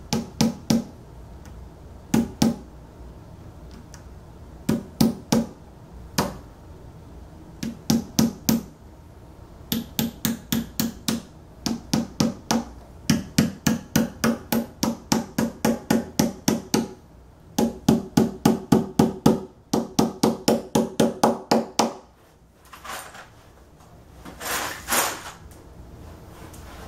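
Claw hammer tapping the two-nail plastic feet into the bottom edge of an IKEA Malm bed's leg panel: runs of quick strikes, several a second, with short pauses between runs. Two softer, duller sounds near the end.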